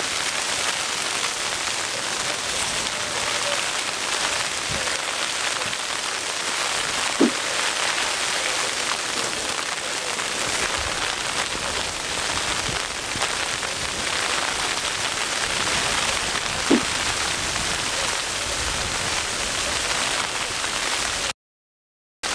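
Ice pellets pattering densely and steadily on a tent's fabric, heard from inside the tent, with two louder taps about 7 and 17 seconds in. The campers take the sudden onslaught for hail.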